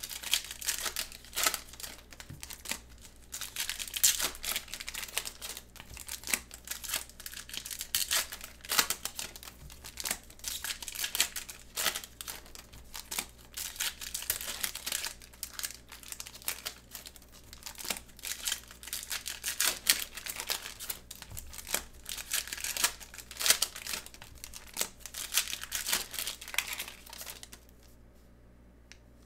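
Foil wrappers of Prizm basketball card packs crinkling and tearing open in gloved hands: a dense run of irregular crackles and rustles that dies down near the end.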